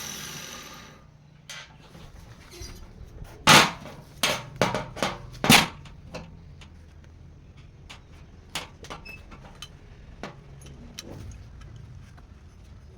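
A running machine dies away in the first second. Then comes a series of sharp metallic knocks and clanks, the loudest two about two seconds apart with a quick cluster of strikes between them, trailing off into lighter clicks: metal parts being struck or handled on a workbench.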